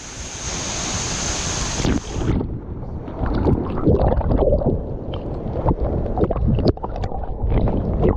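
Rushing water hissing for about two seconds, cutting off suddenly, followed by wind buffeting the microphone with a low rumble and scattered knocks.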